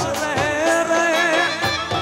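Live Gujarati folk raas music from a wedding band: an ornamented, wavering lead melody over a steady drum beat.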